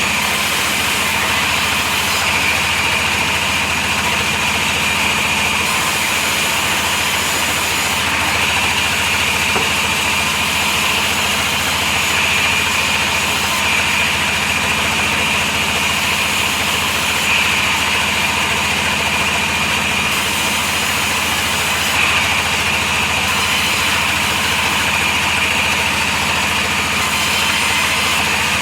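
Motor-driven sawmill saw running steadily as it cuts a heavy log, an unbroken engine-like drone that hardly changes in level.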